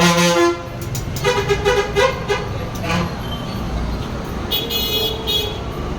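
Vehicle horns sounding several short honks over steady traffic rumble.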